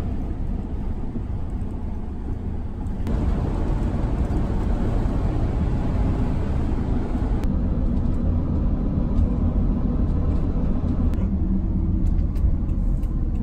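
Motorhome driving at highway speed, heard from inside the cab: a steady low rumble of engine and tyre noise, which changes abruptly in tone a few times.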